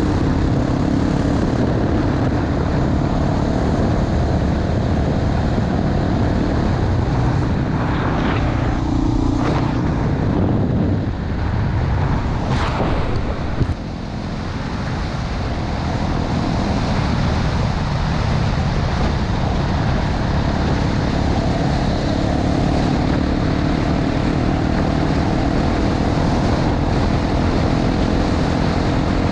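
Honda XR250 Tornado's single-cylinder four-stroke engine running under way on a gravel road, with wind noise on the microphone and tyre noise from the gravel. About midway the engine eases off briefly and then builds back up.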